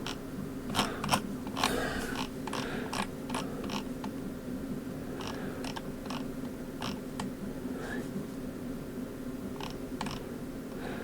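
Irregular clicks and taps of a computer mouse and keyboard in use, bunched in the first few seconds and then sparser, over a steady low hum.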